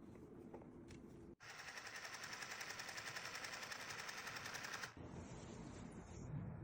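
Mini sewing machine running, a fast even rattle of stitches that starts about a second and a half in and stops about five seconds in.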